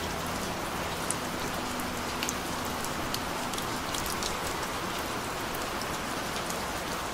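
Steady rain, an even hiss scattered with short, sharp drop ticks.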